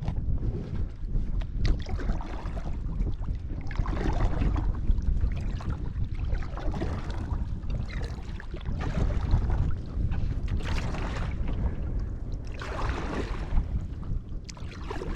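Wind rumbling on the microphone over the splash and trickle of water from a kayak paddle, with the splashy water sound swelling every few seconds.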